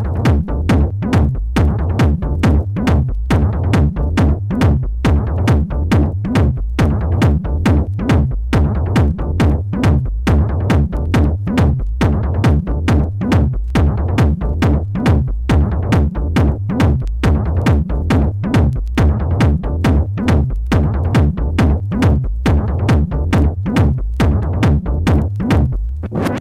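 Techno track: a steady four-on-the-floor drum-machine kick, about two beats a second, over a heavy bass line.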